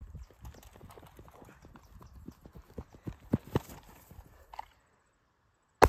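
Running footsteps on grass, a quick rhythmic series of thuds that stops about three-quarters of the way through. Just before the end, a single loud pistol shot rings out with an echo.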